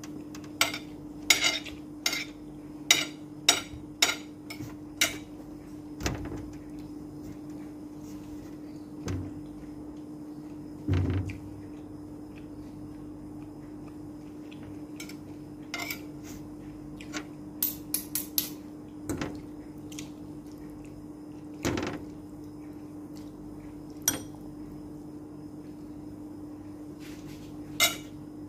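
Metal spoon and fork clinking and scraping against a ceramic plate while eating, a quick run of clinks in the first five seconds and then scattered ones. A couple of dull thumps come near the middle, over a steady low hum.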